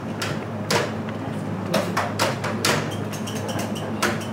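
A series of sharp knocks and clacks of handled props, about six at uneven intervals, the loudest under a second in, over a steady low hum.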